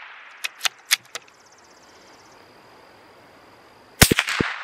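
A CZ 457 bolt-action .22 LR rifle firing a CCI Mini-Mag 40-grain round about four seconds in, a sharp crack followed by echoes. Before it, the echo of the previous shot fades out, then four quick clicks in under a second as the bolt is cycled.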